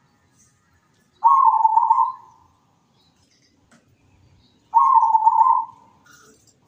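Zebra dove (perkutut) cooing: two calls about three and a half seconds apart, each about a second long, opening with a few quick notes that run into a rolling trill.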